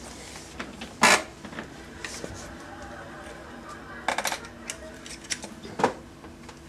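Hard objects clinking and clattering: a sharp clink about a second in, a quick rattle of several clicks around four seconds, and another clink near six seconds.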